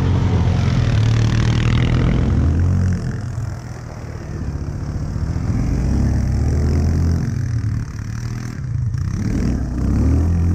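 Arctic Cat 450 ATV engine revving hard as the quad spins through mud. It eases off about three seconds in, builds again around six seconds, drops briefly near eight seconds and revs up again near the end.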